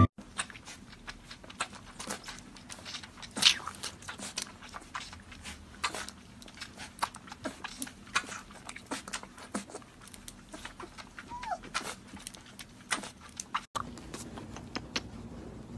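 Puppy suckling milk from a baby bottle: irregular wet smacking and clicking from its mouth on the teat, with one short squeak about three quarters of the way through.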